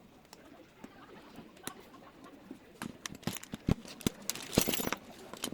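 Sharp metallic clicks and taps of lock parts and keys being handled during installation of the smart lock's cylinder. The clicks are sparse at first and come thick and louder from about three seconds in.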